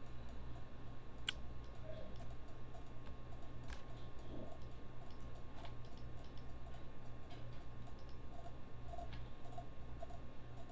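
A few faint computer mouse clicks, spaced irregularly, over a steady low electrical hum.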